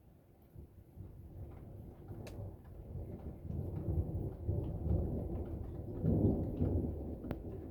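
Rolling thunder: a low rumble that builds from about a second in, is loudest around six seconds, then eases off, with a few light ticks over it.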